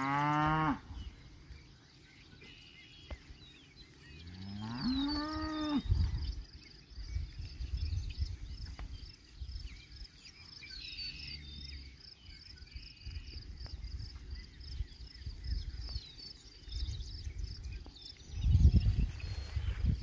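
Cattle mooing in pasture: one call trailing off at the very start, then a long moo that rises in pitch and holds, about four to six seconds in.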